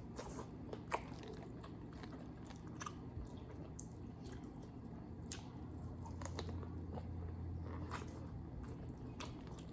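Close-up mukbang eating of a seafood boil: biting and chewing with scattered short sharp crunches and clicks.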